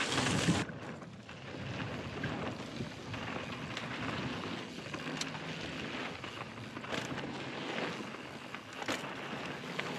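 Mountain bike riding down a dirt trail: a steady rush of tyre and wind noise on the camera microphone, with a few sharp knocks from the bike over the ground, after a loud burst at the start.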